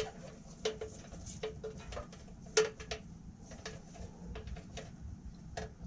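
Light, irregular clicks and taps as wires are handled and pushed into a hole in a steel frame rail. The loudest tap comes about two and a half seconds in.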